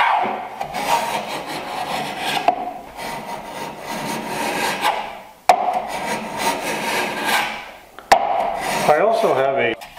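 Small block plane shaving the end grain of a board held in a wooden miter jack, trimming a 45-degree miter: about four long scraping strokes, two of them beginning with a sharp click as the plane is set down.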